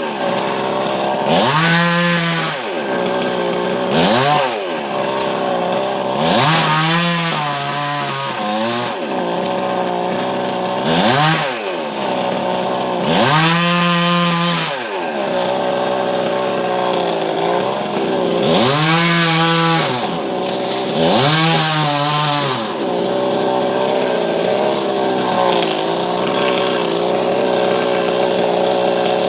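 Chainsaw engine revving up and dropping back again and again, every two to three seconds, then running at a steady speed for the last several seconds, as it cuts into a coconut palm trunk.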